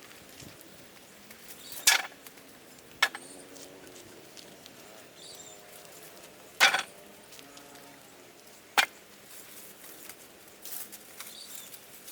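Four sharp knocks at irregular intervals over a low background, the first and third the loudest.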